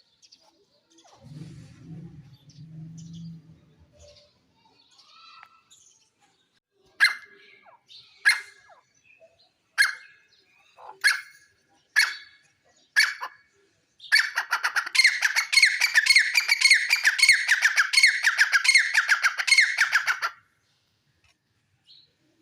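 Gray francolin calling: six loud, sharp single notes about a second apart, then a fast, dense run of repeated calls lasting about six seconds that stops abruptly. A short low rumble comes before the calls.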